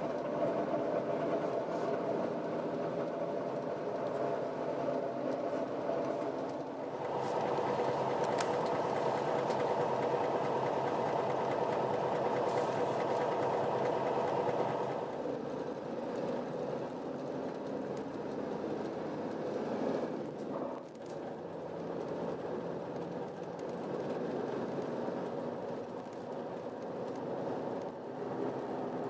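Bus interior while driving: the engine runs steadily under road noise, growing louder from about seven seconds in as it pulls harder, then easing off after about fifteen seconds.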